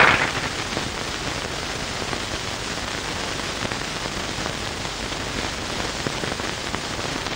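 Surface hiss and crackle of a worn 9.5mm optical film soundtrack, a steady hiss with scattered small clicks and no dialogue or music, after a brief louder noisy burst at the very start.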